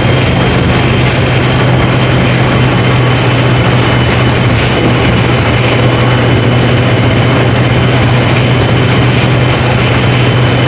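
Mercedes-Benz OF 1721 BlueTec 5 bus's four-cylinder diesel engine running at a steady speed: a strong, even low hum over a wash of mechanical and road noise, with a faint steady high whine.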